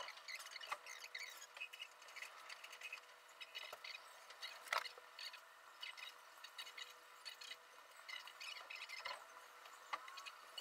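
Faint high chirping and twittering of small birds. A few sharp clicks are heard, the loudest about halfway through, over a faint steady hum.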